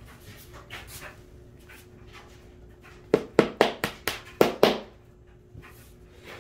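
A hammer tapping a wooden dowel into its hole in a melamine drawer panel: about seven quick, sharp strikes over a second and a half, starting about three seconds in, after some light handling knocks.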